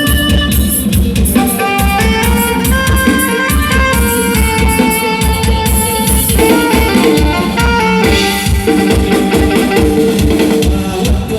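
Loud Thai procession music played through a rot hae sound truck's speakers: an electronic keyboard melody over a quick, heavy drum beat with shakers and tambourine.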